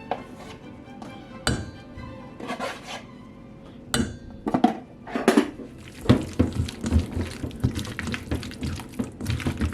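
Utensils clinking and knocking against a bowl or dish during food prep: a few separate knocks, then a quick run of clinks in the last few seconds. Background music plays underneath.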